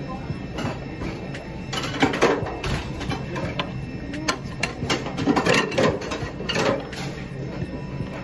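Restaurant sounds: a steady mechanical hum under irregular clinks and clatter of plates and chopsticks.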